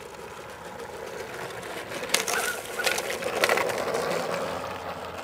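Battery-powered G-scale model steam locomotive's electric motor whirring as it runs on the garden track, with a few sharp clicks and knocks about two to three and a half seconds in.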